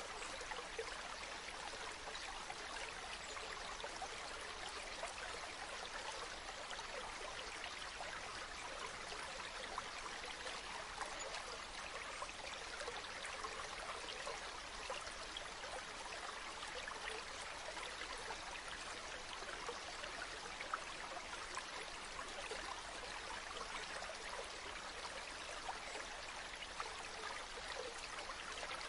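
Stream water running steadily over stones, a continuous babble with small splashes and trickles throughout.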